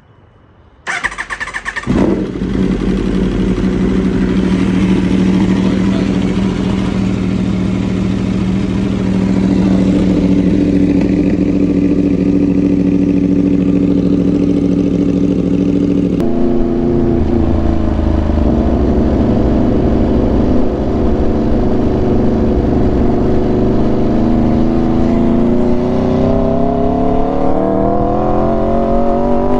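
Aprilia RSV4 V4 engine being started after an oil and filter change: the starter cranks briefly about a second in, the engine catches about two seconds in, and it then runs at a steady idle. About halfway through the note changes abruptly, and near the end its pitch climbs slowly.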